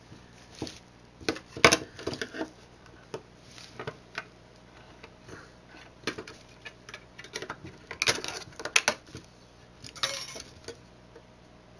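Irregular clicks, taps and clinks of small hand tools and parts handled while a small electronic device is taken apart, with a thicker run of clicks near the end and a short scrape.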